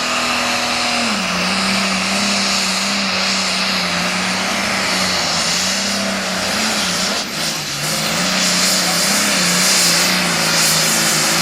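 Super Farm pulling tractor's turbocharged diesel engine running flat out under load. Its note drops about a second in, then holds lower with a slight waver over a heavy rush of exhaust noise.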